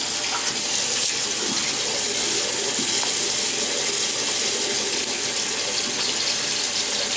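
Water running steadily from a tap into a sink, an even hiss that holds the same level throughout.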